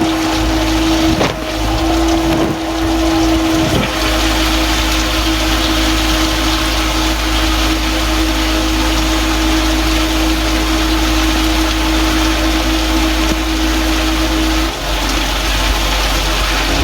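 Water from a Samsung dishwasher's wash cycle spraying against the plastic bags sealing the recording phone, a loud, steady rushing, over a steady hum from the wash pump that cuts out near the end. A few knocks in the first few seconds.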